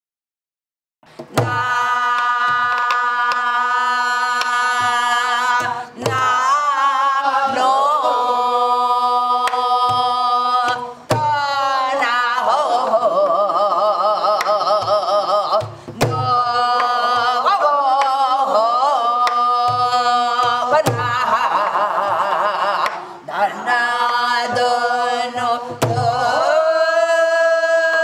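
Korean gueum: a wordless vocal melody of long held notes with a wide, wavering vibrato and sliding pitch, sung over drum strokes in a gutgeori rhythm. It begins about a second in.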